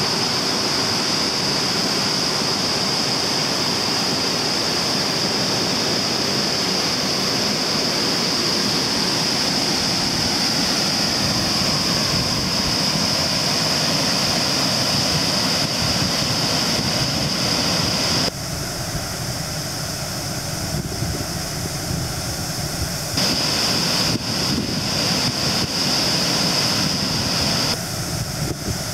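A sailboat's engine running steadily under way, mixed with rushing water from a waterfall and a steady high hiss. The upper part of the sound drops off sharply about two-thirds of the way through, comes back briefly, then drops again near the end.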